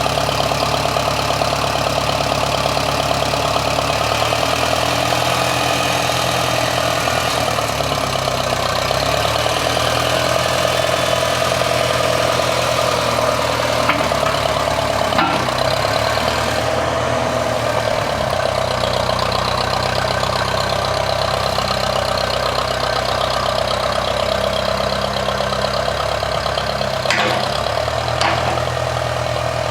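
An engine running steadily, with a few short clicks about halfway through and again near the end.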